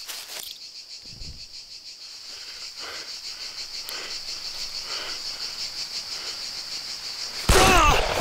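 Steady high chirring of crickets in the woods. About seven and a half seconds in, a loud revolver shot with a man crying out.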